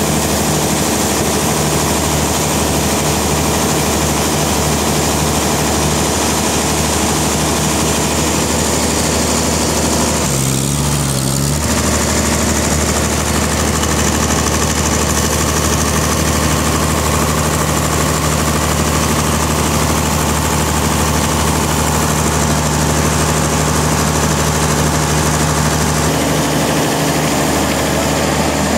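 Sawmill machinery running steadily, an engine-driven saw with a constant drone and a hiss, its pitch shifting briefly about ten seconds in.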